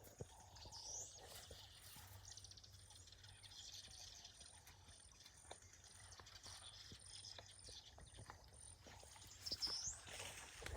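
Near silence: faint outdoor ambience with scattered light knocks and a short rising high chirp about a second in and again near the end.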